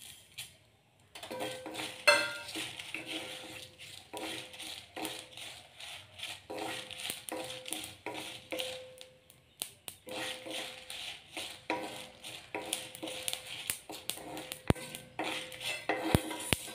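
A wooden spatula stirring and scraping dried red chillies and cumin seeds around a dry wok as they roast. It starts about a second in and goes on as a busy run of scrapes and light rattling taps.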